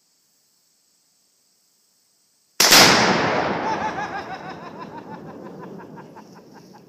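A binary exploding target (Star Targets, similar to Tannerite) detonating when hit by an AK-47 rifle shot: one sudden, very loud blast about two and a half seconds in, followed by a long rolling echo that dies away over about four seconds. Insects buzz faintly before the blast.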